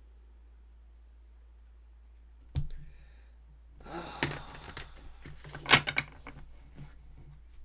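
A single sharp knock, then about three seconds of close clattering and rustling handling noise with a few louder clicks, over a steady low hum.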